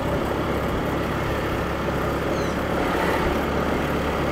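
Motor scooter running along the road while being ridden, a steady engine and road rumble.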